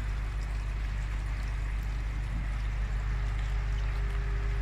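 Pond pump running with water rushing steadily through plastic pipework, a low steady hum under an even flowing noise. A faint higher hum joins about three seconds in.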